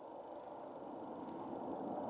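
Jet engines of a Boeing 747 on approach to land: a distant rushing noise that grows steadily louder as the airliner comes nearer.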